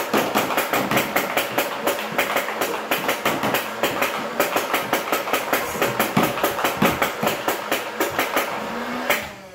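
Nerf Rival Nemesis, a motorized flywheel blaster, firing full-auto: a rapid, even stream of foam-ball shots at about seven a second, cutting off suddenly near the end.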